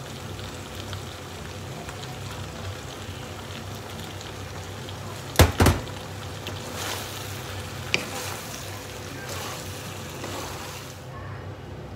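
Macaroni in tomato and meat sauce sizzling steadily in a frying pan. About five and a half seconds in there is a sharp double knock. After that, a wooden spatula scrapes and stirs the pasta and melting cheese in the pan.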